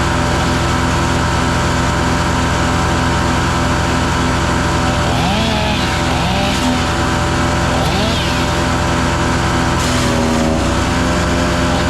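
Gasoline engine of a 7-inch wood chipper running at steady speed; about ten seconds in its pitch sags briefly and recovers.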